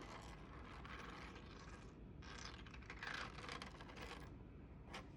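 3D-printed plastic hexagon fidget toy being twisted, its interlocking segments scraping and rattling against each other in faint, irregular bursts, with a sharp click near the end.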